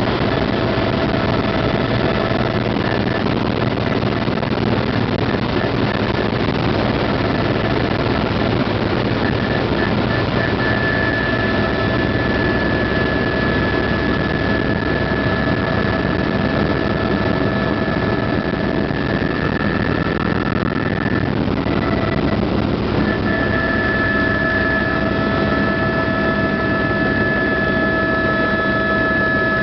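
Helicopter in flight heard from inside the cabin: a loud, steady drone of rotor and turbine noise, with a steady high whine over it that drops away for a couple of seconds about two-thirds through.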